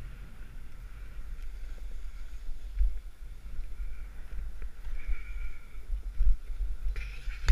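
Wind buffeting a skier's camera microphone in a low, gusting rumble, with the faint hiss of skis sliding on packed snow.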